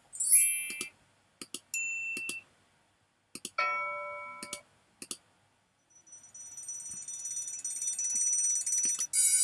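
Bell sound-effect previews from Final Cut Pro's library, played one after another with double mouse clicks between them: a brief bright chime, a single short tone, a bell ring dying away, then an electric alarm bell ringing continuously and growing louder near the end.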